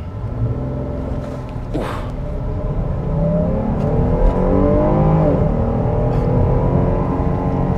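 Jeep Grand Cherokee L's 3.6-litre Pentastar V6 accelerating hard from a brake-boosted launch, heard from inside the cabin: the engine note rises in pitch, dips at an upshift of the automatic about five seconds in, then climbs again.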